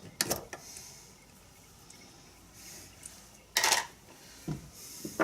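Small metal and plastic parts of an animatronic eye mechanism clicking and clattering as they are worked loose and set down. There are scattered light clicks, a sharp clatter just after the start, and the loudest clatter about three and a half seconds in.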